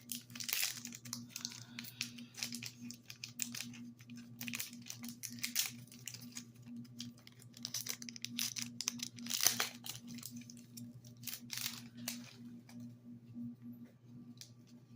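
A trading-card booster pack's foil wrapper being torn open and crinkled, in scattered bursts of crackling. A steady low hum runs underneath.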